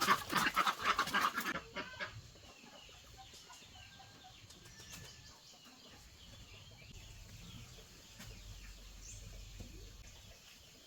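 Chickens clucking, a loud busy flurry for the first second and a half, then quieter, with faint high chirps.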